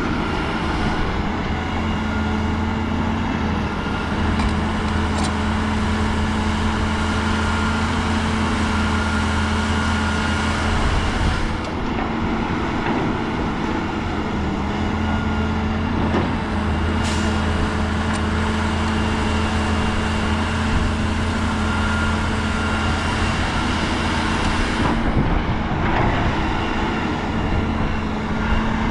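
Heavy diesel earthmoving machinery running steadily with a deep, continuous engine drone, marked by a few brief knocks.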